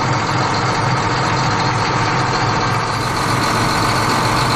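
An engine idling steadily, a tractor's engine sound.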